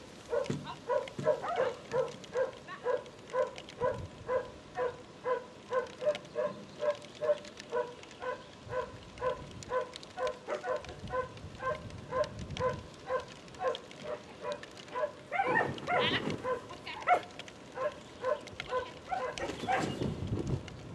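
A dog barking over and over in short, evenly spaced barks, about two a second, with two louder, rougher bursts in the last few seconds.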